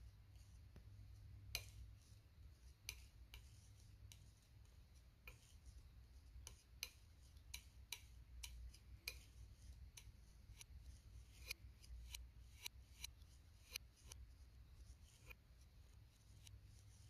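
Metal palette knife tapping and scraping through thick acrylic paint on a palette: light, irregular clicks, two or three a second, over a low steady hum.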